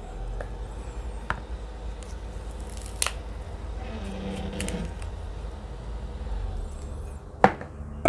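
Knife cutting into a young, crisp water mango, a few sharp crisp cuts spaced out, with the two loudest near the end.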